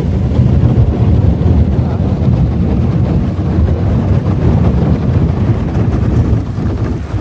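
Small motorboat under way, its bow breaking through thin sea ice: a loud, steady low rumble of the motor and the hull crunching through the ice.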